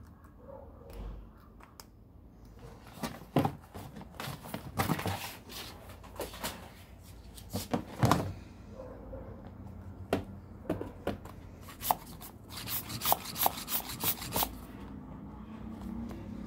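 Handling noise from a rubber bicycle inner tube and a plastic mini pump being moved about: irregular clicks, knocks and rubbing. The noise comes in two busy stretches, a few seconds in and again toward the end.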